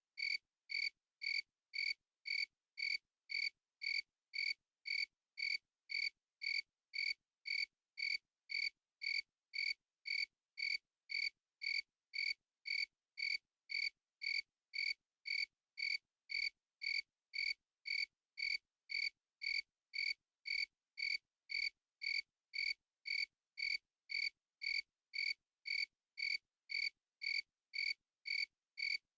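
A single cricket chirping in a steady, even rhythm, about three short high-pitched chirps every two seconds.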